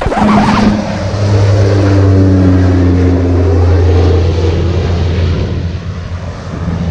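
A motor engine drones steadily, its pitch sinking slightly, then fades away about five seconds in, like a craft passing by.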